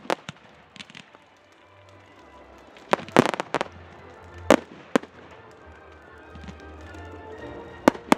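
Fireworks display: aerial shells bursting with sharp bangs, a quick cluster about three seconds in, two single bangs a little later and another pair near the end.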